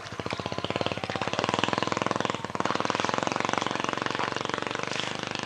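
A small engine running steadily, with rapid, even firing pulses.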